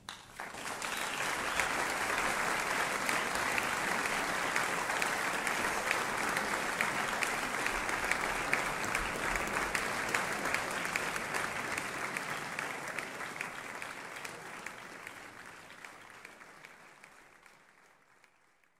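Audience applauding: it starts suddenly about half a second in, holds steady for several seconds, then slowly dies away over the last six seconds or so.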